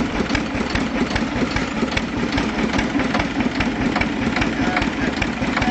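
Engine of a small homemade tractor idling steadily with an even, regular knock. It is a water-cooled engine with a large flywheel.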